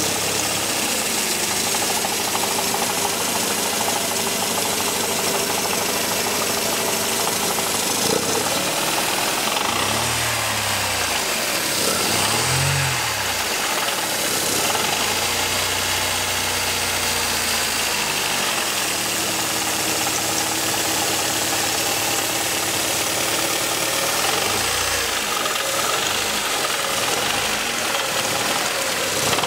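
Mercedes 230CE's 2.3-litre M102 four-cylinder engine running with a horrible rattling noise at low revs, its speed rising and falling a few times. The mechanic takes it for a bottom-end fault such as a worn big-end bearing; the camshaft, lifters, timing chain, exhaust heatshields and flex plate have been checked and found sound.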